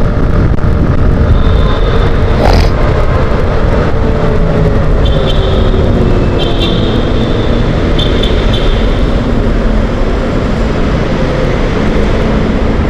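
A 160 cc motorcycle riding with wind rushing over the microphone, its engine note falling slowly as it eases off into slower traffic inside a road tunnel. A sharp knock about two and a half seconds in, and short high beeps a few times in the middle.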